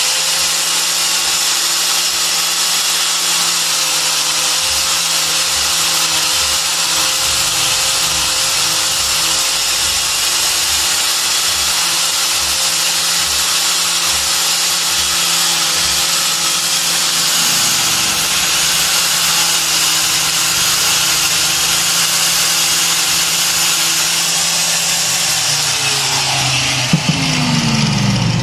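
Electric angle grinder fitted with a felt buffing wheel, running steadily with a hiss as the pad polishes a plastic-encased amulet to a shine. Near the end the motor is switched off and its whine falls in pitch as it spins down, with a knock as the grinder is set down.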